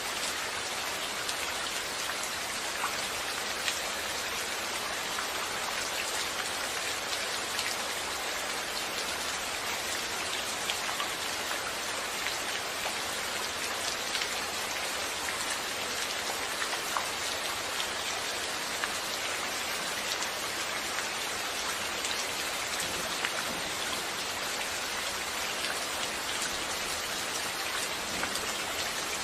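Steady rain falling, with a constant hiss and many small distinct drop ticks on a surface.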